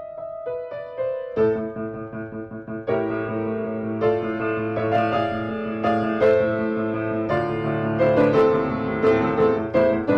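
Piano-led music: a light melody that is joined about a second and a half in by fuller chords and a bass line.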